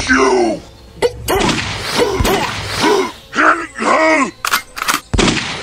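A series of exaggerated, monster-like grunts and groans, each short cry rising and falling in pitch, coming in a quick run from about two to four seconds in. Several sharp thumps and whacks fall between them, with a cluster near the end.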